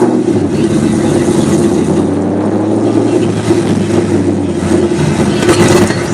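Camaro's swapped LQ4 6.0-litre V8 running under way at fairly steady revs, with its note shifting slightly about five seconds in.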